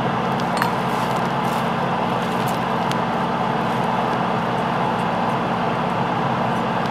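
Airbrush equipment running: a steady motor hum under a constant rush of air, with a few faint light clicks in the first few seconds.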